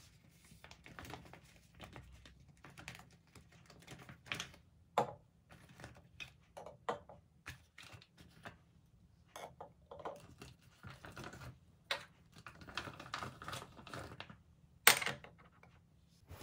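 Small plastic travel bottles and jars being taken out of a clear vinyl pouch and set down on a desk: scattered clicks and taps with plastic rustling, the loudest knock near the end.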